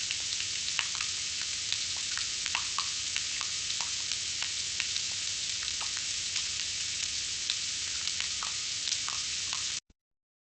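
Breaded food deep-frying in hot oil: a steady sizzling hiss dotted with sharp crackles and pops. It cuts off abruptly near the end.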